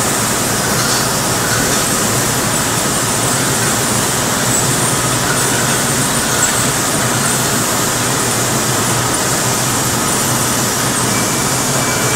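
Water-bottling line running: filling machines and conveyors carrying plastic bottles make a steady, even machine noise with faint steady tones above it.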